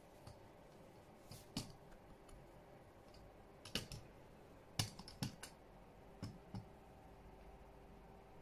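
A string of about ten light, irregular clicks and taps, some in quick pairs, over a quiet room.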